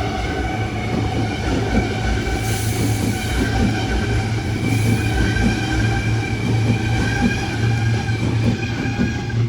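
Electric passenger train running, a steady whine of several high tones over a low hum; the whine fades near the end.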